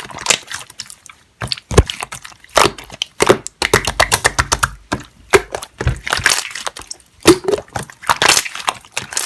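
Close-up crunching and crackling: many sharp clicks in quick, irregular succession.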